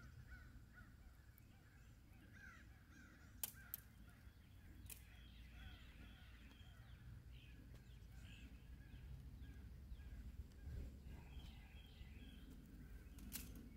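Faint outdoor ambience of birds calling in the distance over a low rumble, with a few sharp clicks from tent stakes and poles being handled: two a few seconds in and one near the end.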